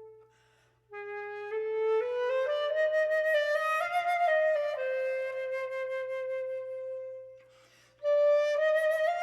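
Unaccompanied flute playing a slow phrase: a held note dies away, then after a brief breath the line climbs step by step to a long held note that fades. A new phrase begins after another breath near the end.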